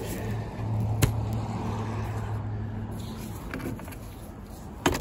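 A motor vehicle's engine hum that swells and fades over about three seconds, with a sharp click about a second in and another near the end.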